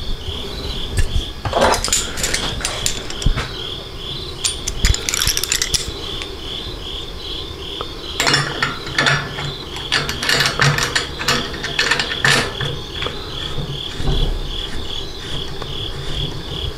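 Stainless-steel still column parts and clamp clicking and rattling in short bursts as a sight-glass section is clamped on with a gasket. A steady high chirping, about three chirps a second, runs underneath.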